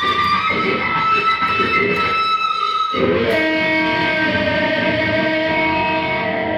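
Stratocaster-style electric guitar played with long, sustained lead notes. Just before three seconds in, a new group of notes is struck and rings on.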